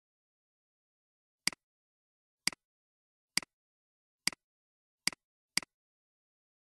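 Computer mouse clicking six times at an irregular pace, each click a quick press and release, against silence.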